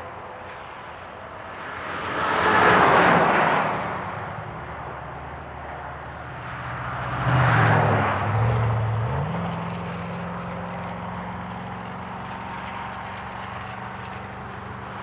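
Traffic passing on a highway: two vehicles swell past with tyre and road noise, about three and about seven and a half seconds in. Under the second one a truck engine's low hum rises in pitch once and then runs steadily as the truck approaches.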